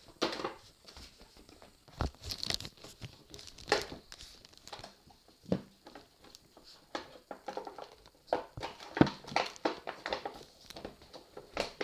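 Crinkling and rustling of a Monster High doll box's cardboard and plastic-window packaging being handled, with irregular sharp knocks as it is moved and set down on the table.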